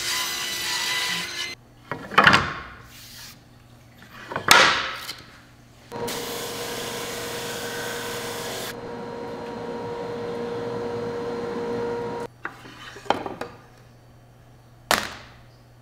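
Table saw cutting through a board on edge (resawing), which stops about a second and a half in. Two short swishes follow. Then a drum sander runs steadily for about six seconds, and a few short wooden knocks come near the end.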